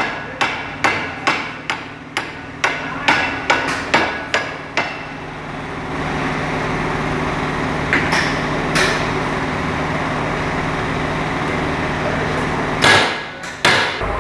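Hammer blows on the steel yoke of a truck driveshaft, about ten strikes at roughly two a second, driving the needle-bearing cup out to remove a worn universal-joint cross. After that comes a steady hum with a couple of light clinks, then a loud double knock near the end.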